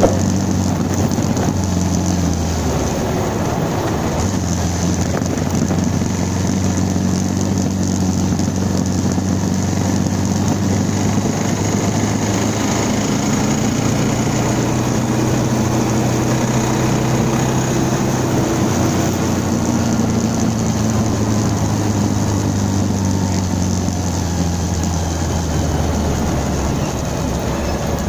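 Bajaj Pulsar 220F's single-cylinder engine running steadily under way, with wind and road noise over it. Near the end the engine note drops as the bike slows down.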